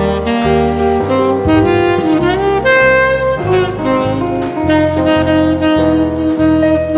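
Background music: jazz with a saxophone lead over a walking bass and drums.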